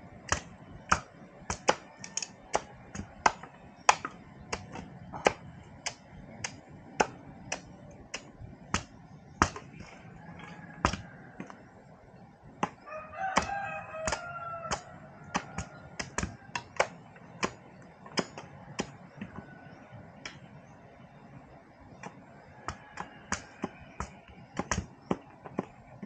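Machete chopping bamboo in sharp, irregular strokes, about one or two a second, with a short lull in the middle. A rooster crows once about 13 seconds in.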